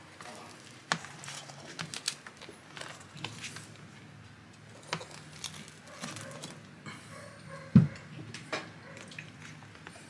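A metal pizza server cutting into a baked pizza and scraping and tapping on a metal baking tray: scattered clicks and scrapes, with one louder knock about three-quarters of the way through.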